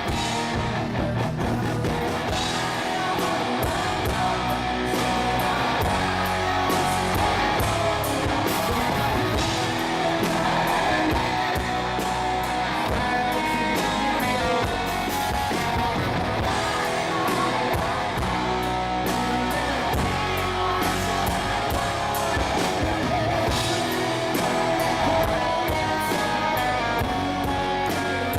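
Rock band playing live: guitar and drum kit carrying on steadily.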